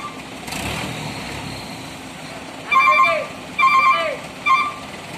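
Vehicle horn honking three times, two half-second honks and a shorter third, over a steady engine running underneath.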